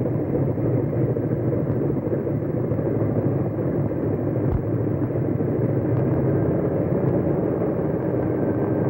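Steady running of a Douglas DC-3 airliner's twin radial piston engines as the plane taxis.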